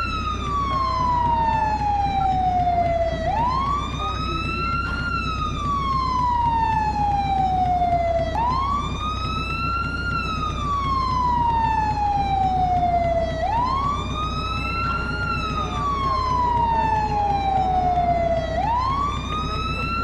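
Fire truck siren sounding a wail: a tone that climbs quickly, then sinks slowly, repeating about every five seconds, four times over. A steady low hum runs underneath.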